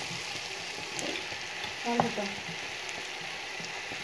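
Sliced onions and tomato sizzling in oil in a frying pan as they are sautéed and stirred, a steady hiss with one louder knock about halfway through.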